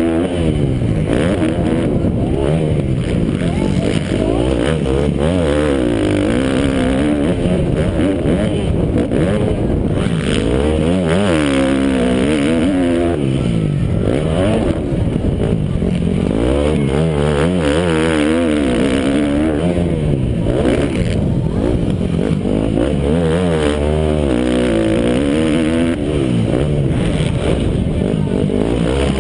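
Motocross bike engine revving loudly, its pitch climbing and dropping again and again every couple of seconds as it accelerates, shifts and backs off.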